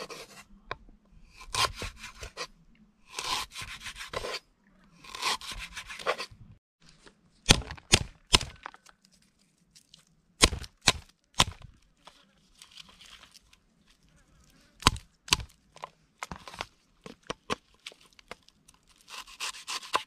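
Kitchen knife slicing lemongrass stalks and garlic on a round wooden chopping block, in bursts of quick cutting strokes. Several loud, sharp knocks come in the middle.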